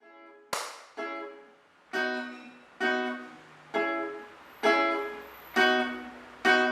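Acoustic guitar strumming chords about once a second, each stroke ringing and then fading, in a reggae/ska-like rhythm.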